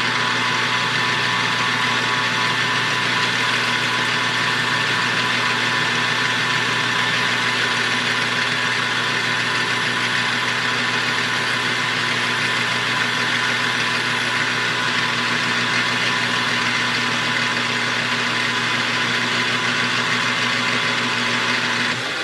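Metal lathe running steadily, a constant motor and gear hum. Near the end it is switched off and the pitch falls as the spindle winds down.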